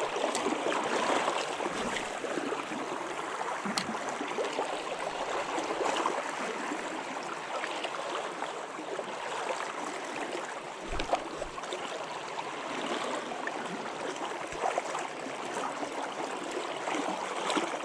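Steady rush and gurgle of river current flowing around a wading angler's legs in a riffle, with a couple of faint low thumps about eleven seconds in.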